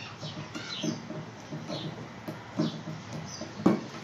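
A metal spoon stirring and scraping a thick spice paste around a glass bowl: repeated squeaky scraping strokes about twice a second, with one sharper knock against the bowl near the end.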